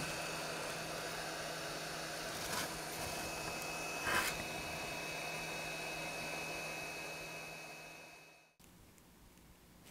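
Hot air rework station's blower running with a steady hiss and a faint hum, fading away from about seven seconds in and then cutting off suddenly. A brief handling noise comes about four seconds in.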